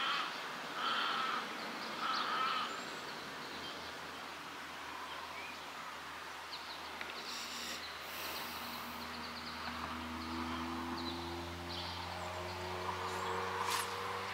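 Crows cawing, three calls about a second apart near the start, over outdoor background hiss. From about ten seconds in, a distant engine hums and slowly rises in pitch, and a single click comes near the end.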